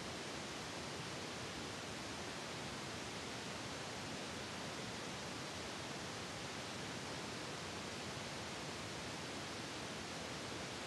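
Steady, even hiss like recording static, with no other sound coming through.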